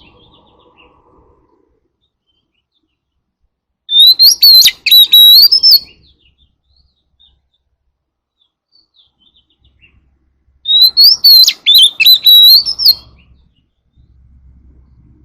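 Oriental magpie-robin singing: two loud whistled phrases of about two seconds each, several seconds apart, made of quick notes that rise and fall.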